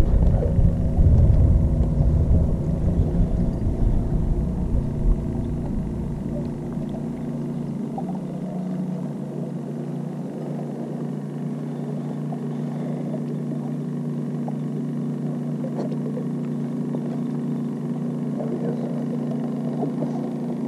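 Steady low hum of a fishing boat's motor. Heavy wind rumble on the microphone for the first five or six seconds, then dying away.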